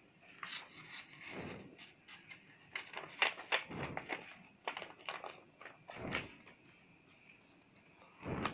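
A square sheet of paper being folded and creased by hand on a tabletop: short rustles and swishes as it slides and bends, with a few soft taps. The sound stops for a moment, then a louder swish comes near the end.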